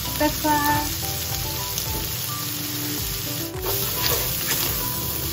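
Diced chicken and garlic sizzling steadily in hot olive oil in a frying pan. In the second half, a wooden spatula stirs and scrapes through it.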